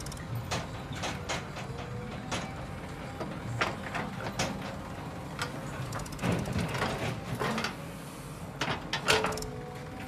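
JCB 3DX backhoe loader's diesel engine running steadily under the clank and clatter of its bucket and boom. A stretch of rattling about six seconds in is soil and stones pouring from the bucket into a tractor trolley, and the loudest knock comes near the end.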